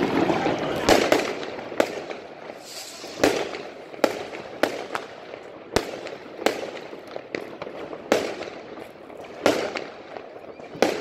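Aerial fireworks exploding overhead: about a dozen sharp bangs at uneven intervals, roughly one a second.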